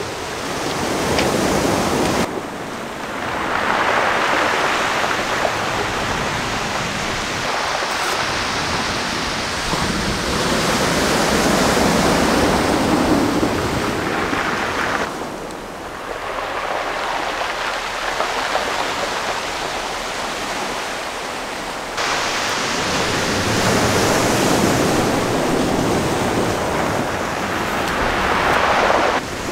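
Surf breaking and washing on a pebble beach, swelling and easing off in long surges of several seconds each. The sound changes abruptly a few times.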